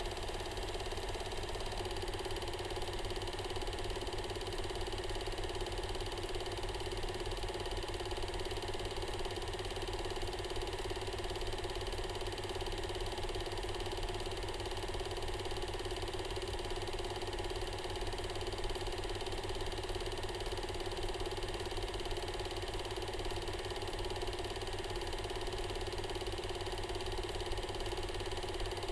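Film projector running: a steady mechanical whir with a fast, even clatter from the shutter and film-advance mechanism.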